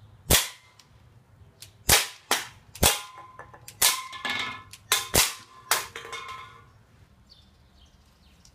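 A Smith & Wesson BB pistol fired about nine times in quick succession, each a sharp pop, stopping about six seconds in. Some shots are followed by a short metallic ring as the BBs strike aluminium soda cans and knock them over.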